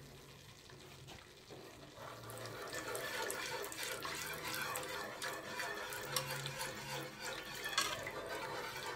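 Chicken broth pouring in a stream from a glass measuring cup into a hot flour roux in a pan, starting about two seconds in. A wire whisk clicks lightly against the pan as the broth is stirred in.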